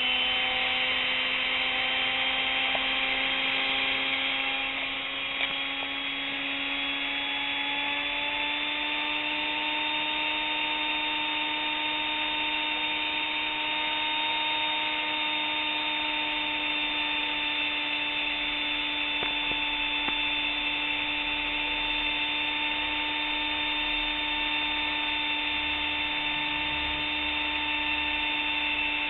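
Brushed universal motor from a kitchen mixer running unloaded on low-voltage DC, its gear pinions removed: a steady whine over a hiss of brush noise. The pitch creeps up over the first several seconds as it gathers speed, then holds.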